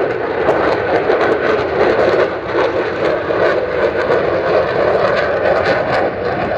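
A fighter jet's engines during a low pass: a loud, steady jet noise that holds through the whole stretch, shot through with rapid crackling.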